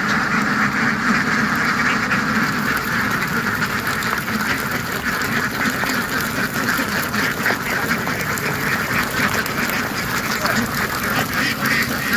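A large flock of domestic ducks quacking continuously, many calls overlapping into one dense chorus.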